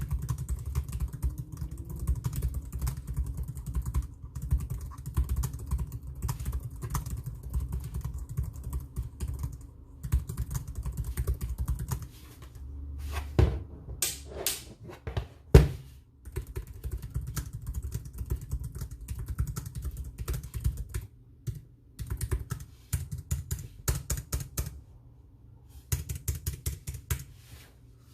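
Typing on a ThinkPad TrackPoint Keyboard II: its low-profile scissor-switch keys clatter in quick runs broken by short pauses, with a few louder key strikes in the middle.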